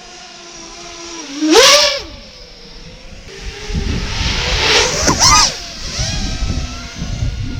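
FPV racing quadcopter's electric motors whining, with sharp throttle punches about a second and a half in and again around five seconds in that make the pitch surge up and drop back. A low rumbling noise runs underneath from about halfway.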